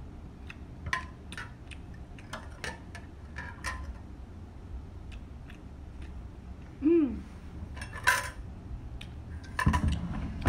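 Metal spoon and fork clinking and scraping against a large clear bowl while the last of the noodle soup is eaten, a run of sharp clicks, then a brief falling voice sound about seven seconds in and a louder knock as the bowl is moved near the end.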